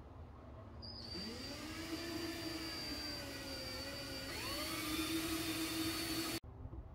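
Cordless drill spinning up about a second in and drilling into the rear side splitter and bumper, its motor whine climbing in pitch again partway through, then cutting off abruptly near the end.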